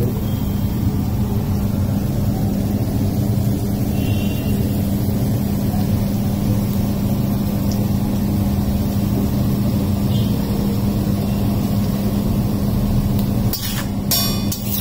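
Steady low rumbling noise with a constant hum running under it. A few sharp clicks come in near the end.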